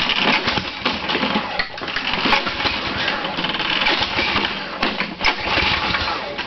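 Toro lawn mower's small engine being pull-started and sputtering without catching, a dense rattly racket of misfires; the owner has flooded the engine.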